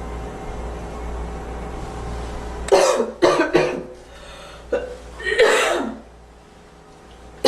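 A girl coughing: a quick run of three or four coughs about three seconds in, a small one a little later, then one longer cough a couple of seconds after. A steady low hum runs underneath until the coughing starts.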